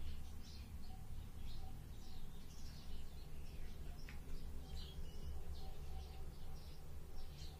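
Small birds chirping, many short high chirps in quick irregular succession, over a steady low hum.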